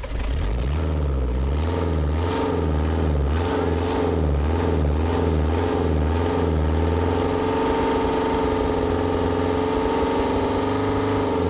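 An old diesel engine with a mechanical high-pressure injection pump idling just after starting, running on WD-40-type spray lubricant instead of diesel fuel. The idle wavers unevenly at first, then settles into a steadier run about seven seconds in.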